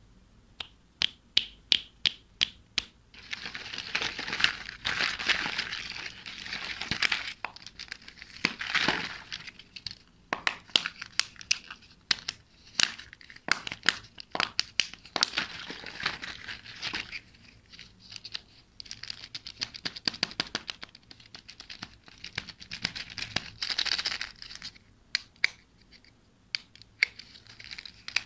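Plastic toy surprise eggs clicking and clacking against one another as they are picked up and handled, with stretches of crinkling and tearing as the printed plastic wrapping is peeled off an egg.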